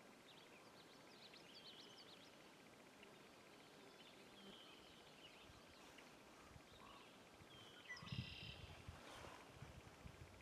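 Near silence with faint, scattered bird chirps. About eight seconds in come a short run of soft low bumps and a brief buzzy call.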